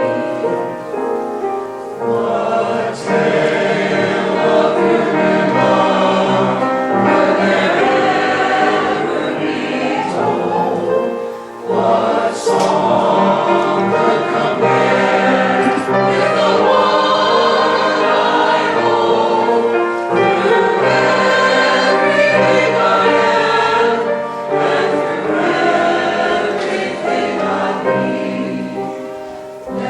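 Choir singing a piece from a sacred cantata, with sustained chords and a short lull about eleven seconds in.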